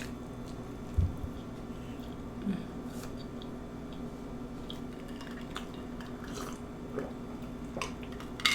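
Close-up chewing and wet mouth sounds of someone eating, with a low thump about a second in and light clicks of cutlery on a dish near the end, over a steady low hum.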